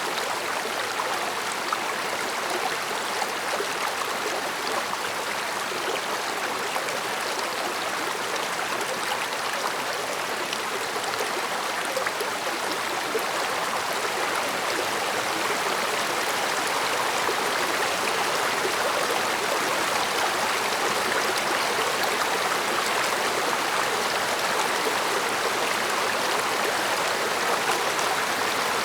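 A mountain stream running over rocks: a steady, dense babble of flowing water with fine splashing and gurgling.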